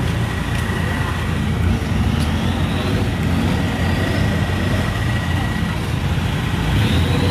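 Road traffic: a steady low rumble of vehicle engines, with a faint high whine and a slowly rising whine as an engine picks up speed.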